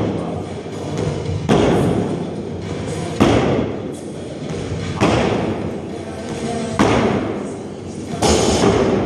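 Feet landing on a wooden plyo box and back on the gym floor during repeated box jumps: five heavy thuds at a steady pace, about one every second and a half to two seconds, each with a short echo.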